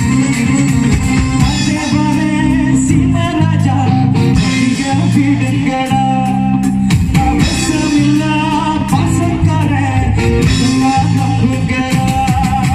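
Amplified live band playing a song: a male singer over keyboard, a steady bass line and drums.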